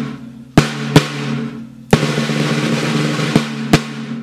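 A drum kit played with sticks: sharp snare hits about a second in, then a rapid snare roll from about two seconds in, with two more hard hits near the end and the drums ringing underneath.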